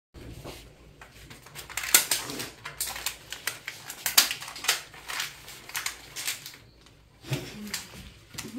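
Newspaper and a plastic bag crinkling and rustling as a lunch parcel is folded and wrapped by hand, a quick run of sharp crackles.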